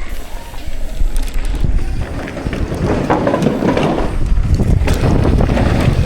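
Wind rushing over the microphone with rumbling tyre and trail noise as a mountain bike rolls downhill, growing louder over the first seconds and swelling in waves.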